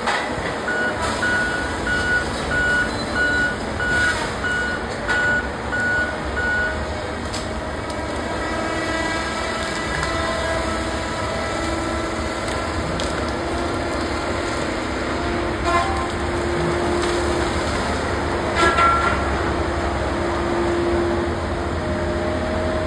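A John Deere tracked feller buncher's diesel engine and hydraulics running steadily under work. Its travel alarm beeps about twice a second for the first several seconds, and a couple of sharp knocks come later, the louder one about two-thirds of the way through.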